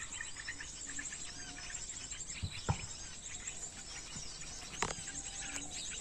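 Dense, continuous high-pitched chirping and twittering of small birds from a played-back bird-lure call (pikat) recording, used to draw small birds in. Two brief knocks stand out, about two and a half and five seconds in.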